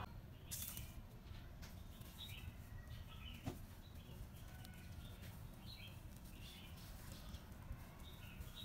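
Faint, scattered short high chirps of small birds over a low steady background rumble, with one sharp click about three and a half seconds in.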